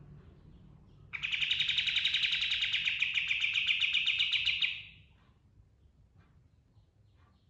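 Kapas tembak (katem) songbird giving a fast, loud rolling trill. It starts about a second in and lasts about three and a half seconds, followed by a few faint chips.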